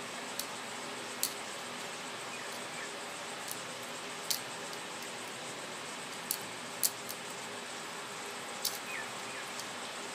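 Laughing doves pecking seed from a bowl: sharp beak clicks against the bowl, several at irregular intervals, over a steady hiss.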